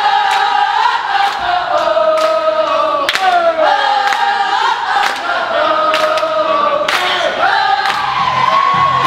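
Crowd of people singing and chanting together, with scattered hand claps. Near the end a low steady beat comes in underneath.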